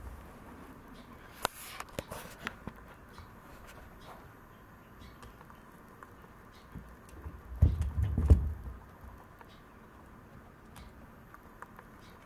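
Maltese dog's paws pattering and scrabbling at a wire pen and the tile floor: a few sharp clicks in the first few seconds, then a heavier bumping, rattling burst about eight seconds in.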